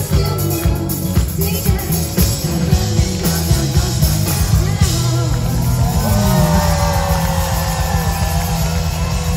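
Live disco-pop band music heard from the audience: a heavy bass and drum beat at about two beats a second, which gives way about halfway through to a denser, more even passage.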